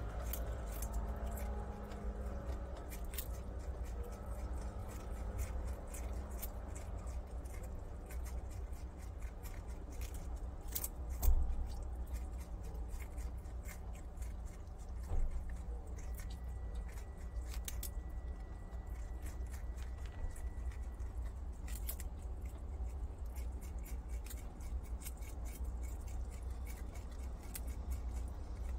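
Prairie dogs chewing pieces of kabocha squash: a steady run of small, crisp clicks of teeth through the firm flesh, over a low steady hum, with one dull thump about a third of the way through.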